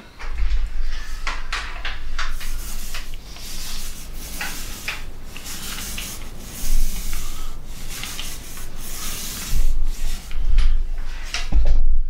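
Small paint roller run back and forth through wet paint on a wooden cabinet top: a rubbing swish that swells and fades with each stroke, with a few low bumps. The strokes stop just before the end.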